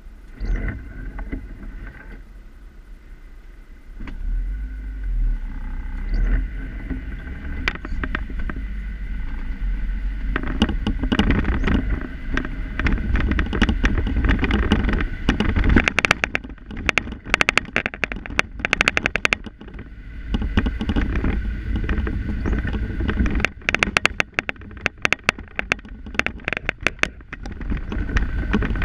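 Inside a car: engine and tyre rumble as the car moves off from standing traffic and drives along a wet city street. From about ten seconds in, a loud, fast clattering rattle from something loose inside the car joins it and keeps coming and going.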